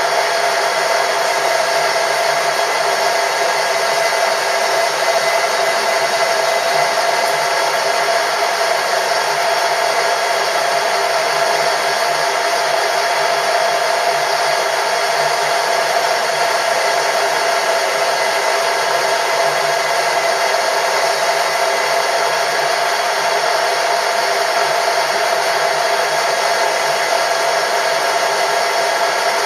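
Metalworking machine tool running steadily, an even motor-and-gear noise with a constant whine and no change in speed.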